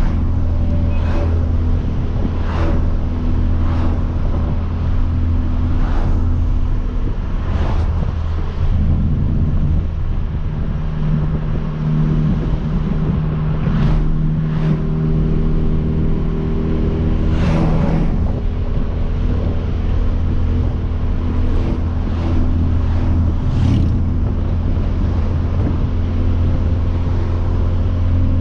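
Hyundai Veloster Turbo's turbocharged 1.6-litre four-cylinder running at a steady cruise, with a catless downpipe and full bolt-ons. About nine seconds in, a higher note joins the engine drone and holds for around nine seconds before dropping away, and short swells of noise come and go throughout.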